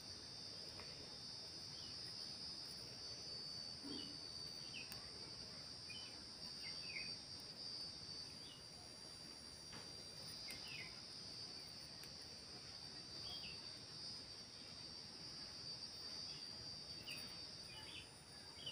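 Faint background with a steady high-pitched drone like crickets, dotted with scattered short faint chirps and a few soft clicks.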